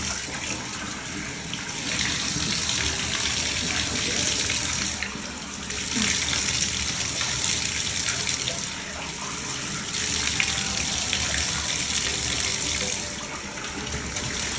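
Bathtub tap running, its water splashing over a wet French bulldog and into the tub. The rush of water dips briefly about three times.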